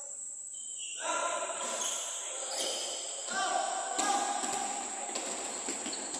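Basketball players calling out to each other while a basketball bounces on the court floor, with the echo of a large hall. The voices start about a second in, over a steady high hiss.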